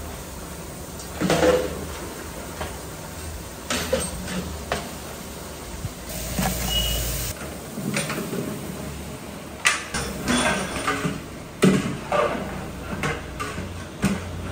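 A long-handled metal ladle clanking and scraping against large metal cooking pots as food is stirred, in irregular knocks over a steady low hum. Partway through, chopped vegetables are tipped from a big bowl into a pot.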